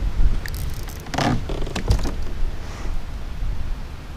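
Wind rumbling on the microphone, with a few knocks and a short rustle between about half a second and two seconds in.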